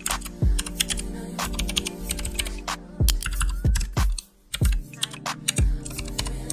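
Computer keyboard typing, a quick run of key clicks, over hip-hop background music with deep falling bass kicks. Both briefly drop out about four seconds in.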